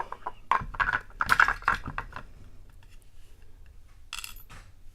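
Small metal parts of a padlock clicking and rattling as the lock is taken apart, with a short jingling rattle about four seconds in.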